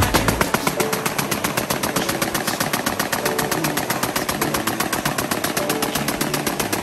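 M60 belt-fed machine gun in 7.62×51mm firing one long full-auto burst, about ten shots a second, without a break.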